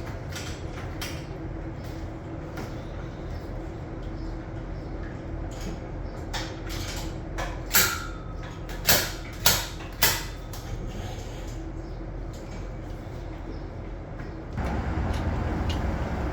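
Milking units being unhooked and handled: scattered metal knocks and clanks, four loud ones in quick succession about eight to ten seconds in, the first ringing briefly, over a steady machinery hum. About fourteen and a half seconds in, the background hum gets louder.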